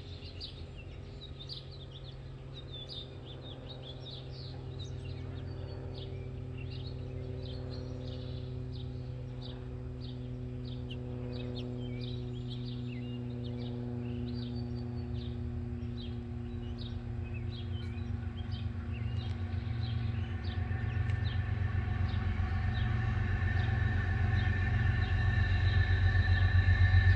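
Low rumble of an approaching Norfolk Southern EMD SD70ACe diesel locomotive leading a ballast train, growing steadily louder, with small birds chirping over it. A steady high ringing tone joins about three-quarters of the way in.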